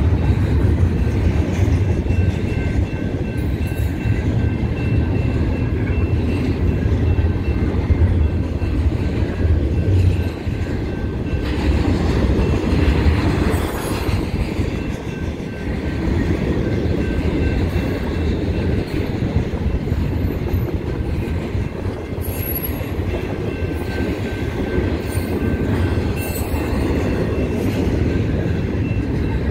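Double-stack intermodal container cars of a freight train rolling past over the crossing with a steady, loud low rumble. Thin high tones come and go above it.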